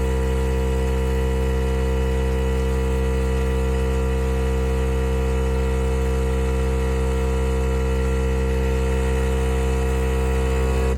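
Philips 4400 Series espresso machine's pump buzzing in a loud, perfectly steady hum while it pushes water through for an espresso shot, cutting off suddenly near the end.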